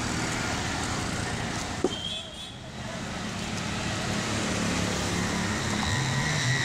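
Street traffic: a steady hum of vehicle engines going by, with one sharp knock about two seconds in.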